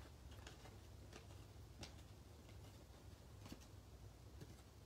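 Near silence: faint, scattered soft clicks of trading cards being flipped through by hand, over a low steady hum.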